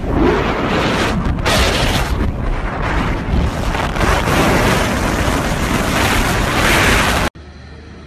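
Strong wind buffeting a phone's microphone on a moving ride, a loud rough rush with gusts. It cuts off abruptly about seven seconds in, leaving a faint low hum.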